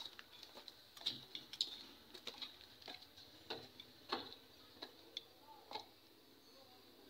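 Footsteps climbing rough concrete stairs strewn with grit: faint, uneven scuffs and crunches, about one or two a second, that die away near the end.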